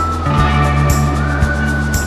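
Background music: a slow rock track with a held, gliding electric guitar line over sustained bass notes and a steady drum beat.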